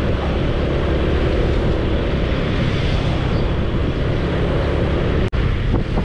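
Steady wind rush on the microphone and low rumble of a motorbike riding along a city street. A sudden, very brief dropout a little past five seconds in.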